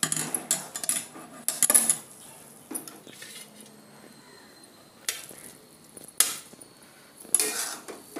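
Steel ladle scraping and clinking against a steel kadhai and a steel plate as cooked vermicelli is stirred and served. There is a quick run of clinks and scrapes in the first two seconds, then a few single knocks.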